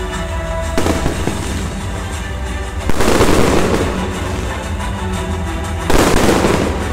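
Aerial fireworks shells bursting: loud bangs about a second in, near three seconds and near six seconds, each trailing off in a crackling spread. Music plays throughout.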